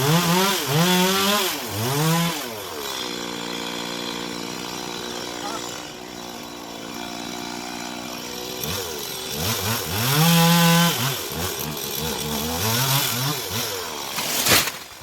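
Two-stroke chainsaw revved in several quick bursts, its pitch rising and falling, then running at a steady speed for several seconds before being revved again. A sharp knock sounds near the end.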